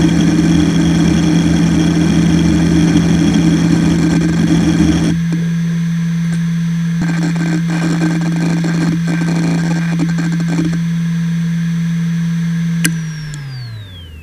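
Fujitsu MAY2073RC 10,000 rpm 2.5-inch SAS enterprise hard drive. Its spindle gives a steady whine under continuous rapid head-seek chatter during a random seek test for the first five seconds. From about seven to eleven seconds in come scattered bursts of seeking during file access. Near the end there is a click, then the whine falls in pitch as the drive spins down.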